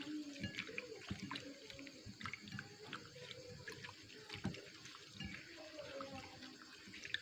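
Hands squeezing and crushing a handful of gotu kola leaves in a bowl of water: faint, irregular wet squishes and small splashes.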